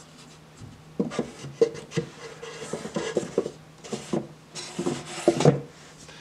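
Wooden drawer being handled and slid into its opening in a wooden box, wood rubbing and knocking on wood in a run of scrapes and knocks. It is pushed shut near the end.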